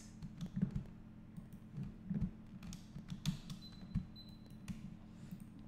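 Scattered clicks of a computer mouse and keyboard, a dozen or so short irregular taps, over a faint steady hum.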